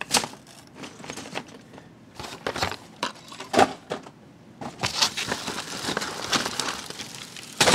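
Lego bricks and models clattering and knocking as they are pushed and packed into a plastic storage box, with plastic bags crinkling through the second half.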